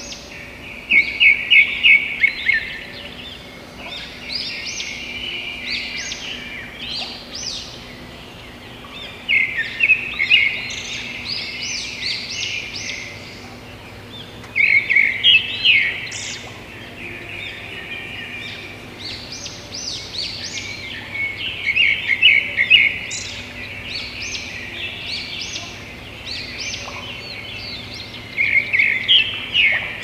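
Small birds chirping in recurring bursts of rapid, high chirps every few seconds, over a faint steady low hum.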